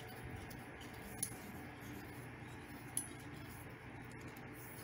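Thin metal floor-lamp leg tubes being screwed together by hand, giving a few light metallic clinks over a steady low background hum.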